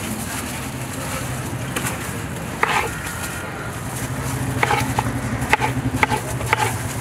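A long knife slicing watermelon on a cutting board: a handful of sharp knocks as the blade meets the board, the first about two and a half seconds in and several more in the second half. Under them runs a steady low engine hum.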